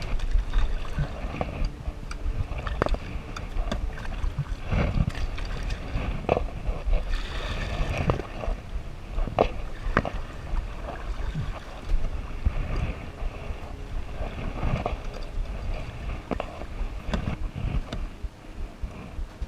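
Kayak on a moving river: water gurgling and splashing around the hull, with scattered irregular knocks and clicks and a low wind rumble on the microphone.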